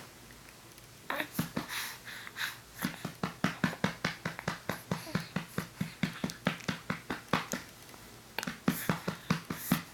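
A hand patting a two-month-old baby's back to burp her, about three to four pats a second, starting about a second in, with a short pause near the end.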